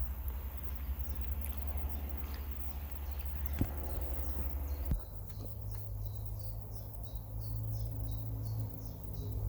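A small bird calling in a quick run of short, high, falling chirps, about three a second, starting about halfway through, over a steady low rumble. There are two sharp knocks just before the chirps begin.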